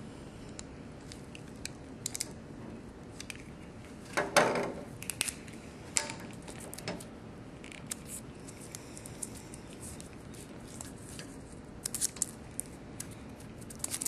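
Plastic sheath of a 14-3 electrical cable being slit with a utility knife and peeled back by hand: scattered small clicks and scrapes, with a louder scrape about four seconds in.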